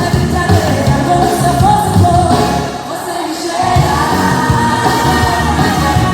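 Upbeat pop song with a steady beat and a singing voice, played as music for a dance workout.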